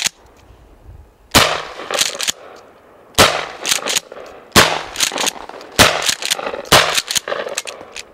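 Mossberg 500A 12-gauge pump-action shotgun fired five times, one to two seconds apart. Each loud shot is followed by a couple of shorter clacks as the pump is racked.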